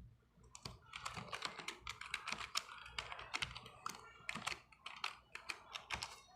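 Computer keyboard being typed on: an irregular run of key clicks, a few a second, as a login password is entered.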